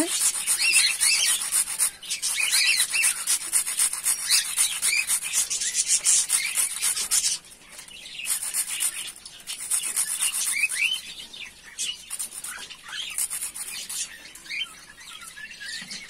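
Dry toast rusk being rubbed on a small metal hand grater into crumbs: quick rasping strokes, steady at first, pausing briefly about seven seconds in, then in shorter runs that die away near the end. Birds chirp in the background.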